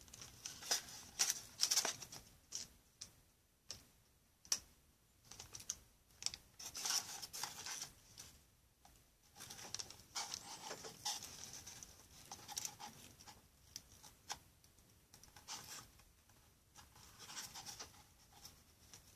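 Hands handling a foamboard model revolving door with craft-stick parts: scratchy rubbing and irregular small clicks and taps of foamboard against foamboard and wood.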